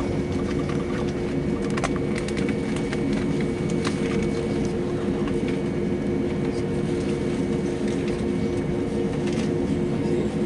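Steady drone inside an Airbus A320's passenger cabin, with an even hum holding a couple of steady tones and a few light clicks.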